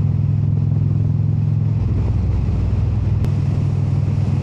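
Motorcycle engine running steadily at riding speed under a steady rush of wind, with a slight change in the engine note about two seconds in.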